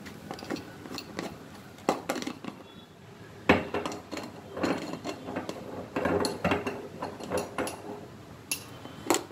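Aluminium cooking pot on a gas stove being handled, with irregular knocks and clinks of metal and the pot's contents; the sharpest knock comes about three and a half seconds in.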